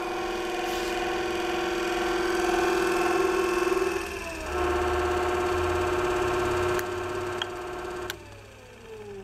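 Dynabrade 64900 belt sander running, its 1 hp DC motor and belt giving a steady whine. About four seconds in the pitch dips and drops out briefly, then the machine comes back up to speed. A few clicks come from the speed control near the end, and the sander winds down with a falling pitch as it is switched off.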